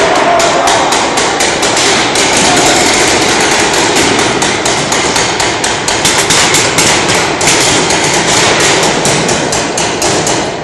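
Paintball markers firing in rapid, continuous volleys, many sharp shots a second.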